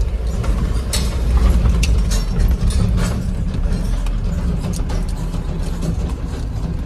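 Steady engine and road rumble inside a mini truck's cab as it drives slowly over a rough dirt track, with the cab rattling and knocking over the bumps.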